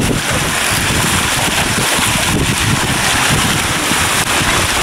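Wind buffeting the microphone hard over the steady rush and hiss of water streaming past a Hobie Tiger catamaran's hull under sail.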